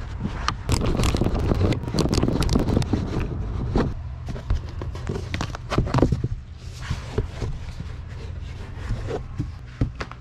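Clicking, rattling and scraping as screws are backed out of RV window trim with a number 2 square driver bit. It is busiest in the first few seconds, then thins to a few sharp clicks.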